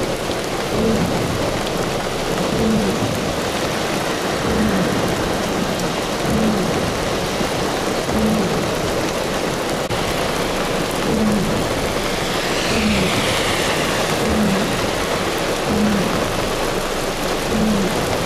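Heavy rain falling in a steady, loud hiss, with a faint low pulse about every two seconds. A falling whoosh passes about twelve seconds in.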